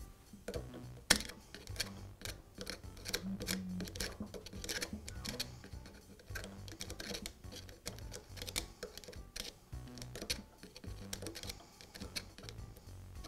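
Irregular small metallic clicks and taps as a steel nut is threaded onto a drill press spindle by hand, with a drift punch held through the quill to lock the spindle. One sharper click comes about a second in.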